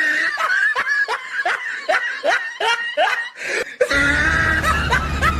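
A high-pitched, rapid laugh of about a dozen short rising notes, roughly four a second. About four seconds in, a low engine rumble starts.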